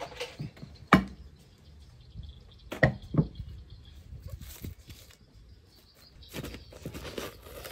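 Ceramic plate knocking against a glass bowl and a wooden table as the bowl is turned out onto it: one sharp knock about a second in and two more close together about two seconds later. Near the end, plastic cling wrap crinkling as it is handled.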